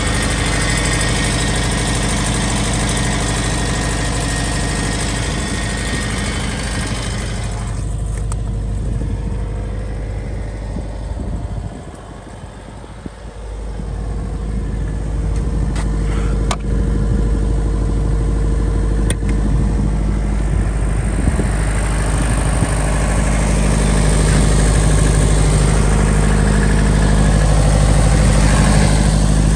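Yanmar diesel engine of a Himoinsa HYW-20 kVA generator set running at a steady speed. The sound turns duller and quieter about seven seconds in, drops lower for a moment around twelve seconds, and grows brighter again from about twenty-two seconds, with a couple of light clicks in between.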